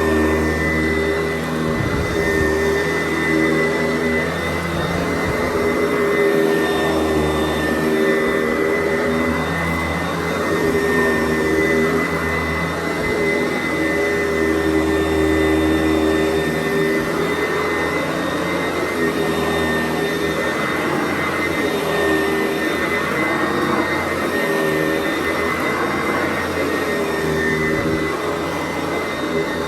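Sanitaire SC889B upright vacuum cleaner running continuously, a steady motor hum with a high whine on top that shifts slightly in tone and level every few seconds as it is worked.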